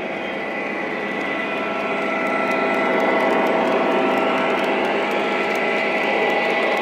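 Small indoor camera drone's propellers and motors whirring steadily, growing louder about two seconds in.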